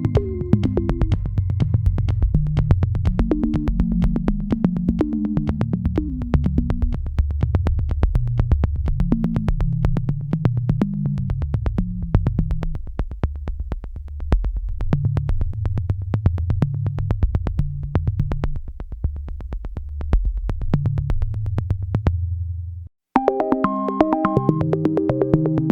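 Background electronic music: a low synthesizer bass line over a steady ticking beat. It cuts out briefly near the end, then a higher keyboard melody comes in.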